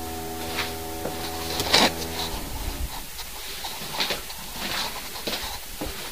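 A steady motor hum with evenly stacked tones, which the man takes for drilling elsewhere in the building, stops about two and a half seconds in. Scattered light clicks and knocks follow.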